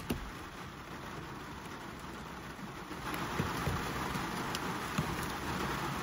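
Razor blade scraping melted plastic off a textured plastic dashboard: a scratchy hiss that grows louder about halfway through, with a couple of small clicks.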